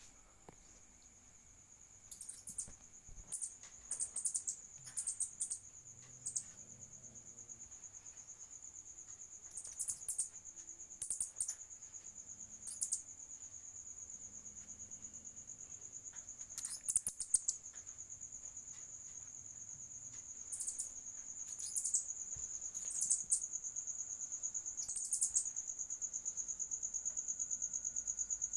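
A mouse squeaking in a dozen or so clusters of short, high-pitched squeals, heard over a steady high trill of crickets.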